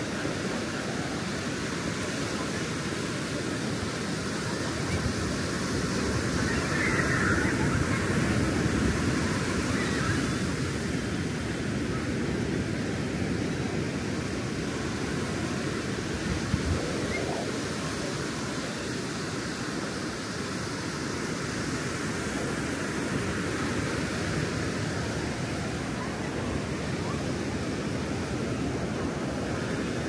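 Pacific surf breaking and washing up a sandy beach, a steady rush that swells louder for a few seconds about a fifth of the way in. A single brief thump a little past the middle.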